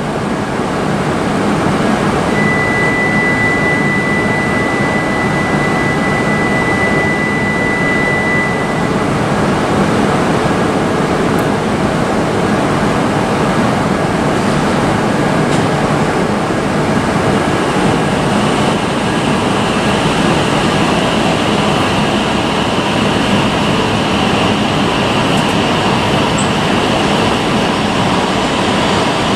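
E5 and E6 series shinkansen set at a platform, running with a steady loud noise, then starting off and picking up speed. A higher electrical whine comes in about two-thirds through. A single steady high tone sounds for several seconds near the start.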